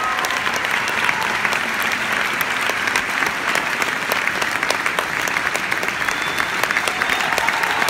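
Theatre audience applauding at a curtain call: dense, steady clapping with many individual sharp claps standing out.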